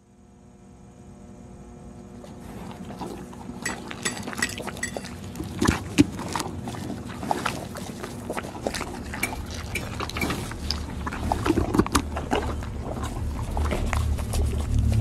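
Film soundtrack fading in from silence: a low steady hum with scattered wet clicks, knocks and clinks over it, slowly growing louder.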